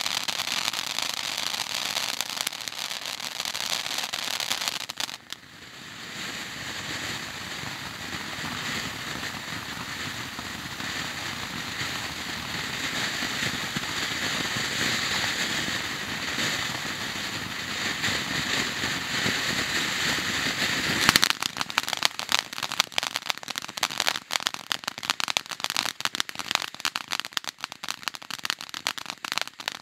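Howler Fountain ground firework fountain spraying sparks. A steady hiss with crackle drops away briefly about five seconds in, then returns as a steady hissing rush that slowly grows louder. About two-thirds of the way through it changes suddenly to dense, rapid crackling.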